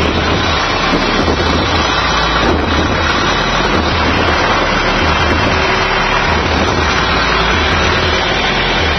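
Massey Ferguson tractor engine running steadily under load while pulling a plough, heard up close from the tractor seat.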